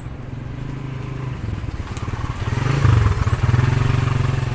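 A small engine running steadily, getting louder about halfway through with a brief wobble in pitch.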